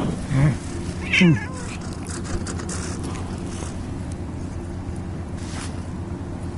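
A cat meowing twice: a short call, then a longer one that falls in pitch, both within the first second and a half.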